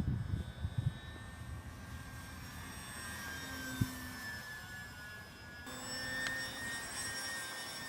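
Parkzone FW-190 RC warbird flying: its electric motor and propeller give a steady high whine that drifts slightly in pitch with throttle. Wind buffets the microphone at the start, and there is a sharp click just before the middle.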